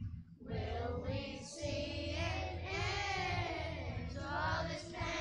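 A children's choir singing a worship song in unison, with a woman's voice among them. The singing pauses briefly, then resumes about half a second in.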